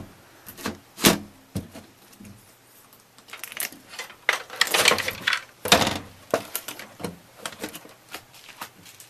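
Computer case's metal side panel being handled and fitted: a sharp knock about a second in, a stretch of scraping and rattling in the middle ending in a loud knock, then lighter clicks.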